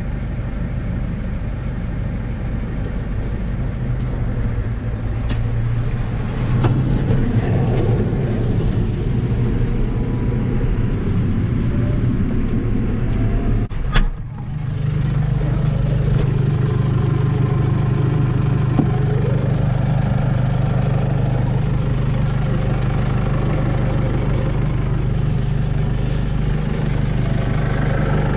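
Tractor engine running steadily, heard from inside the cab, with a few sharp clicks. About halfway through there is a single knock and a brief dip, after which the engine drone is steadier and stronger.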